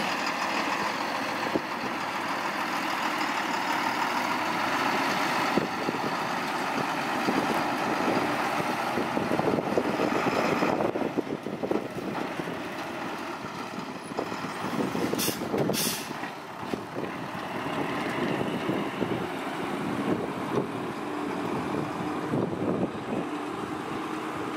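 Diesel engine of a loaded Hino 12-wheel dump truck running under load as it drives slowly off over a rough dirt track, with two short high hisses about halfway through.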